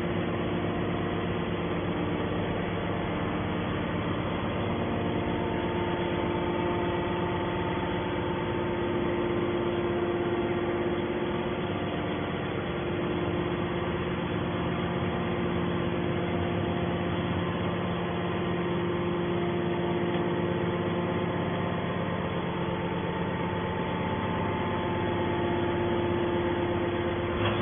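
Hydraulic scrap baler's power unit running steadily: a continuous mechanical hum made of several steady tones, with no strokes or impacts.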